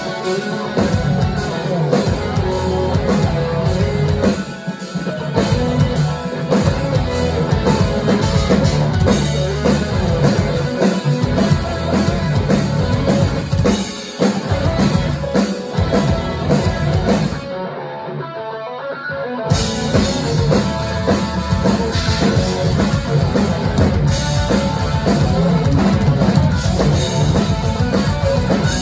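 Live rock band playing loud through the venue's amplification: electric guitars, bass guitar and a full drum kit. About two-thirds of the way through the drums and cymbals drop out for a couple of seconds before the full band comes back in.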